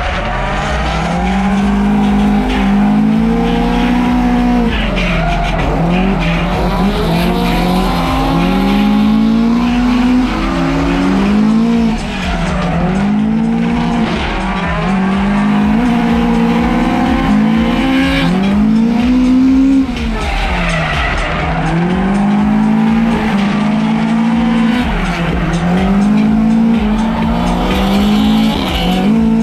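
Toyota drift car's engine revving hard, its pitch climbing and dropping over and over about every two seconds as the throttle is worked through a drift, with tyres screeching.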